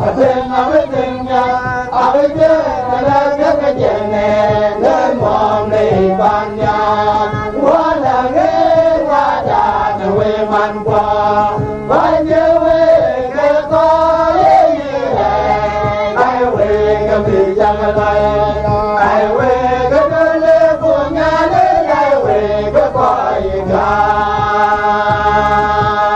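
Dinka gospel song: voices singing a melody over music, with a steady low beat pulsing through the second half.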